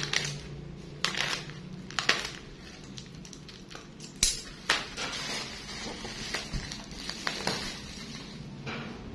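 Black plastic bubble-wrap packaging being torn and pulled off by hand, crackling and crinkling in irregular bursts.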